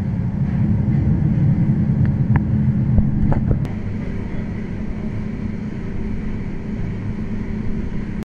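Twin-cylinder steam engine of a sidewheel paddle steamer running, its crankshaft turning: a steady low rumble with a few light clicks two to three and a half seconds in. It eases slightly after that and cuts off just before the end.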